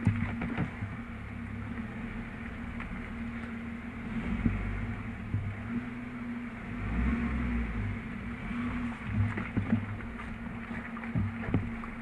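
Jeep engine running while reversing out of soft mud, heard from inside the cabin: a steady low rumble that swells twice as the engine works harder, with a few light knocks.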